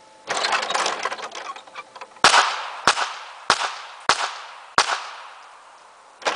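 Five pistol shots about 0.6 s apart in a rapid-fire pistol series, one at each of five turning targets within the 6-second exposure. A rattle of the target-turning mechanism comes before the shots, and again near the end as the targets turn away.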